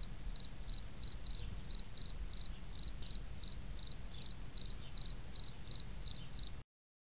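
Steady cricket-like chirping, about three short high chirps a second over a low rumble, cutting off suddenly near the end.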